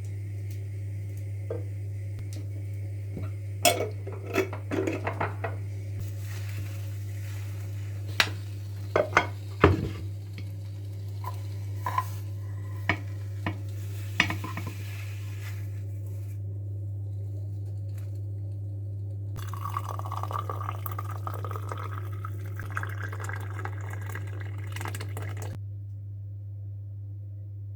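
Dishes and cutlery clinking and clattering in a string of sharp knocks, then a few seconds of rustling, over a steady low hum.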